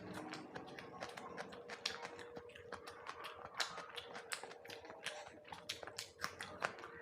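A person chewing boiled eggs close to the microphone: a dense, irregular run of wet mouth clicks and smacks.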